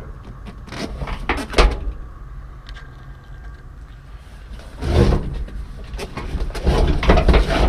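Knocks, bumps and rustling as the truck's old vinyl bench seat is handled to look underneath it. There are a few sharp knocks in the first two seconds, then louder rustling thumps about five seconds in and again near the end.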